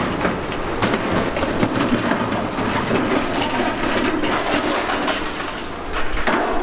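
Mobile rock crusher running under load as demolition rubble is fed in, with a steady clattering rattle of broken concrete and stone over diesel engine noise. Sharp knocks of stone on steel stand out about a second in and again near the end.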